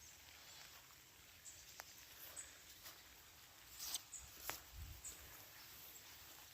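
Quiet outdoor ambience with a steady faint hiss and a few soft clicks and taps, the loudest about four and four and a half seconds in.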